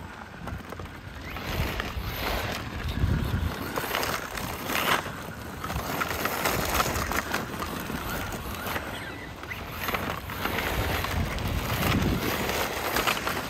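Losi Baja Rey 1:10 scale RC truck driving over loose gravel, its tyres crunching and scattering stones. The sound swells and fades several times as the truck speeds up, turns and passes.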